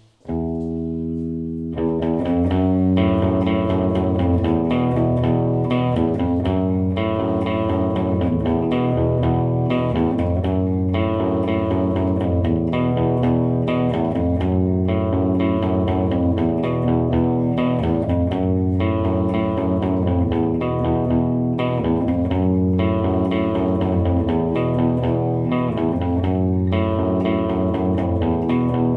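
Electric guitar played through a Line 6 POD Pro rack amp modeler, with a deep bass line under it. One note or chord rings out first, then steady rhythmic playing starts about two seconds in.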